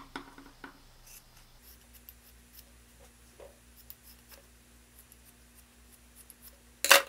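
Steel scissors cutting through an old foam beauty blender sponge: a few faint snips and small clicks of the blades, and one loud, sharp click near the end.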